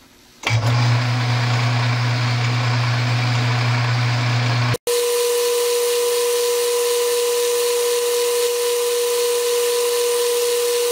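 Metal lathe starting up about half a second in and running steadily, spinning the chuck while a centre drill in the tailstock drills into the end of the bar. After a brief dropout near the middle, it runs on with a steady high whine.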